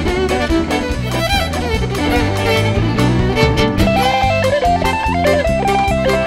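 Fiddle and electric guitar playing together over bass and a steady beat in a small instrumental band. About four seconds in, a quick run of guitar notes comes to the front.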